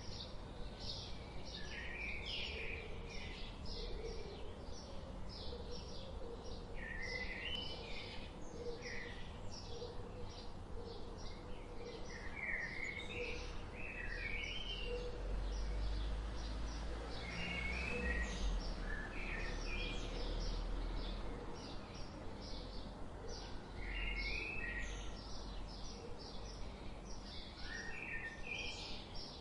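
Several songbirds calling: a steady run of short, high chirps repeated about twice a second, with short warbling song phrases breaking in every few seconds. A steady low background rumble lies underneath.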